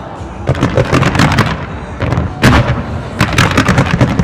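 Aerial fireworks going off in rapid volleys of sharp reports and crackles, in three bursts of activity: about half a second in, around two and a half seconds, and again just after three seconds.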